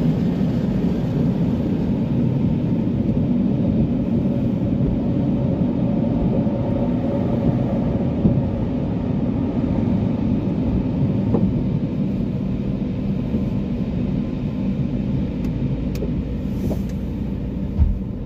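Steady low mechanical rumble with a faint even hum, heard from inside a car in a rollover car wash, with a short thump near the end.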